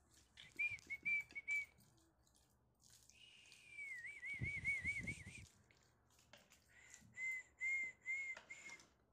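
A person whistling: a few short notes, then a long warbling whistle that starts a little higher and wavers quickly, with a low rumble beneath it, then four more short, even notes near the end.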